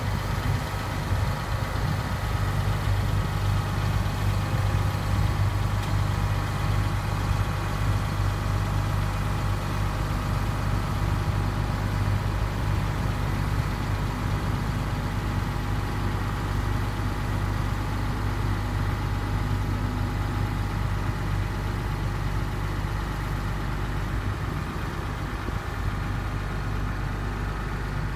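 Massey Ferguson farm tractor's diesel engine running steadily at low revs while towing a small wooden cabin on wheels, a little quieter in the second half.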